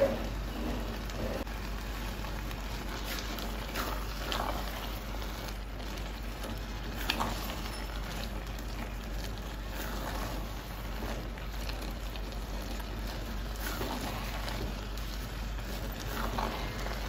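Thick beans and plantain porridge simmering in a pot with a steady hiss, stirred now and then with a silicone spatula that makes a soft scrape every few seconds.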